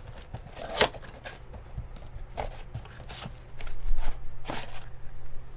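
Cardboard trading-card box (2020 Bowman Sapphire Edition) being handled and opened by hand: scattered scrapes and taps of cardboard, busier and louder in the second half, over a low steady hum.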